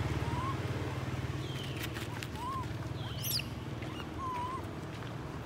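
Baby long-tailed macaque crying alone: a series of short, high cries that rise and fall, one sharper squeal about three seconds in. A motor engine hums low in the background, fading away.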